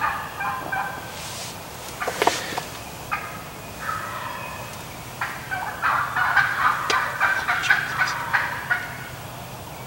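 Wild turkeys calling close by: hens yelping and cackling excitedly in quick runs of notes, with a gobbler among them. The calling comes in bursts near the start and around three to four seconds in, then builds into a long run from about five to nine seconds, with a short sharp noise about two seconds in.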